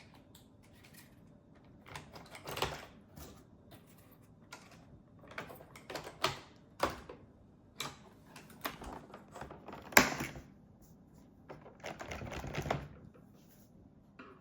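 Scattered plastic clicks and knocks from handling a Roomba S9 cleaning head module while a 3D-printed brush latch is pressed into place and snapped locked. The sharpest click comes about ten seconds in, with a short stretch of rubbing and rattling soon after.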